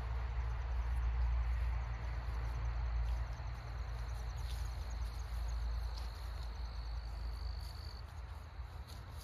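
Crickets trilling in the meadow grass, a thin high steady trill with fast pulsing. Under it runs a low rumble, the loudest sound, which eases after about three seconds.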